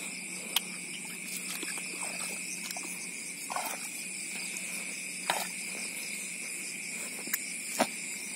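Steady night chorus of field insects in a wet rice paddy: a continuous trill with a fainter, higher one above it. A few short, sharp clicks and knocks are scattered through it, the clearest about half a second in and near the end.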